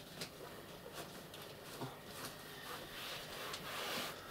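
Fabric cover rustling and rubbing as an upholstered flat-pack sofa panel is handled and jiggled into its cover, with a few light taps. The rustling grows louder about three seconds in.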